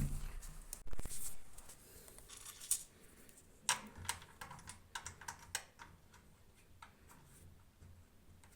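Plastic washing-machine housing parts being handled during reassembly: a thump at the start and another about a second in, then a string of light irregular clicks and taps that die away in the last second or so.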